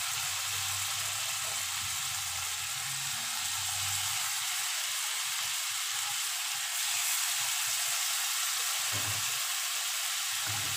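Marinated chicken pieces sizzling steadily as they fry in melted butter in a pan, with more pieces being added one at a time. The sizzle gets a little louder a bit before two-thirds of the way through.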